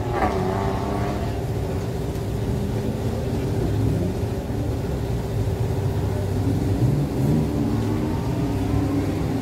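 Car engine running steadily and revving on an autocross course, with a couple of short rises in pitch about two thirds of the way through.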